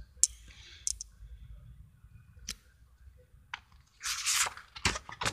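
Paper and handling noises on a spiral notepad: a few light taps and rustles, then a longer, louder rustle of paper about four seconds in, with another short one near the end.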